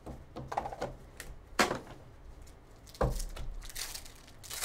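Cardboard box tray and foil trading-card packs being handled on a table: scattered taps and clicks, a sharp snap about a second and a half in, a dull thud about three seconds in, and foil wrapper crinkling near the end.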